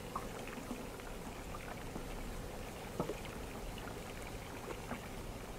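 Water lapping and trickling softly against a small boat's hull. A few faint clicks of hand handling come through it, one near the start and one about three seconds in.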